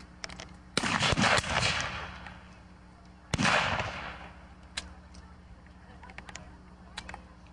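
Black-powder rifle-muskets firing: a ragged volley of several shots close together about a second in, then a single loud shot a little before the middle. Fainter scattered pops of more distant shots follow.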